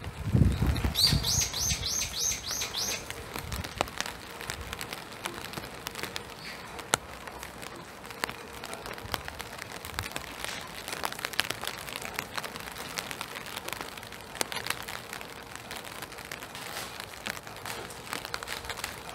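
Spring rain falling in a forest, an even hiss dotted with the ticks of drops, with a few low thumps in the first two seconds. About a second in, a small bird calls a quick run of about eight high notes.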